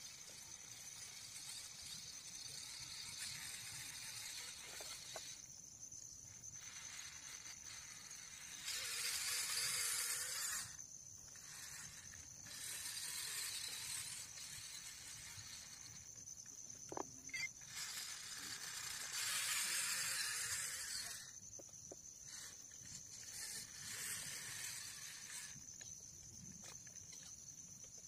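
Toy RC truck's small electric motor and gears whirring in spurts with short pauses between as it creeps along, over a steady high hiss.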